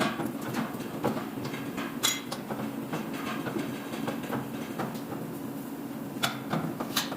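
Workshop sounds: a few sharp metal knocks and clanks, about a second apart at first and again near the end, over a steady low hum.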